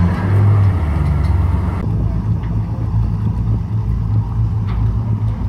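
A heavy engine running close by with a deep, steady hum. It swells up at the start and then holds steady and loud.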